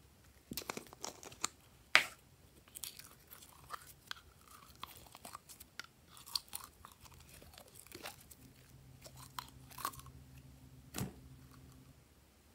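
Sticky slime being squeezed out of soft plastic containers into a glass tray: wet squelches, pops and crackles at an uneven pace, with the sharpest pop about two seconds in and another near the end.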